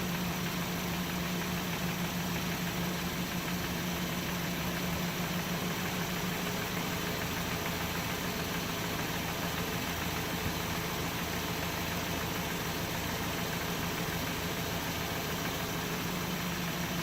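Mercedes 190E 2.0's four-cylinder engine idling steadily on its natural gas conversion while the gas mixture is being tuned to cure a rough idle.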